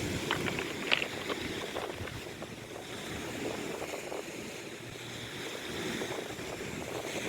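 Steady wash of wind and sea surf, with a few light clicks in the first second or so.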